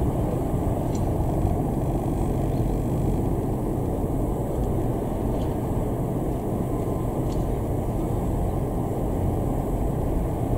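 Eurocopter EC225 Super Puma twin-turbine helicopter taxiing with its rotor turning: a steady, even rumble of engines and rotor.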